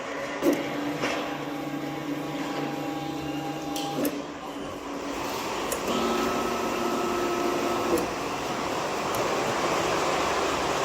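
Industrial machinery running with a steady mechanical hum and whine. Its pitch shifts about four seconds in and again about two seconds later, with a few sharp clicks.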